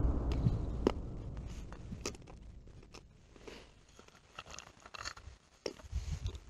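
A boom dies away over the first couple of seconds. Then come faint, scattered clicks and crunches as a wooden kuksa cup of mixed nuts and raisins is handled.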